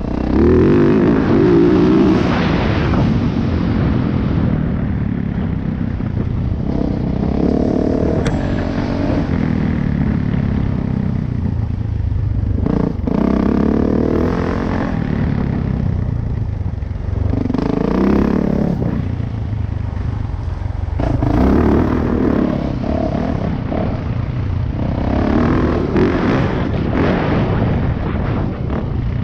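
2018 Yamaha YZ450F dirt bike's single-cylinder four-stroke engine under hard riding, revving up and backing off again and again every few seconds as the throttle is opened and closed. There is a single sharp knock about halfway through.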